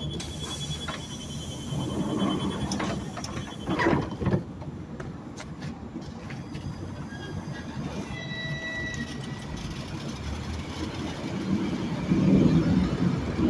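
EP2DM electric train at the platform: the door-closing warning beeps run for the first few seconds, the doors knock shut about four seconds in, and then the train's running gear rumbles, growing louder near the end as it starts to pull away.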